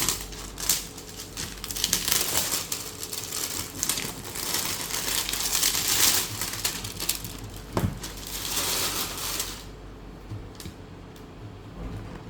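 Packaging crinkling and rustling as it is handled and pulled open during unboxing, with scattered clicks. It stops about nine and a half seconds in, leaving only a few faint clicks.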